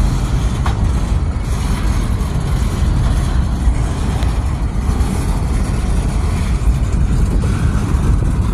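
Freight train of boxcars rolling past close by: a loud, steady rumble of steel wheels on the rails.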